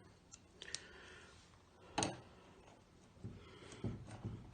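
A few faint clicks and small taps of screws being handled and set into a metal strap hinge on a wooden trunk, with one sharper click about two seconds in and a cluster of light taps near the end.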